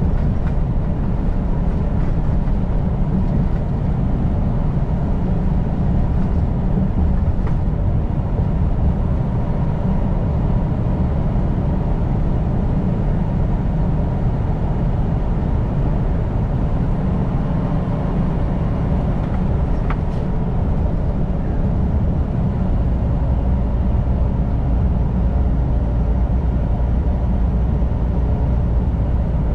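Semi truck's diesel engine and road noise droning steadily, heard from inside the cab while driving on the highway.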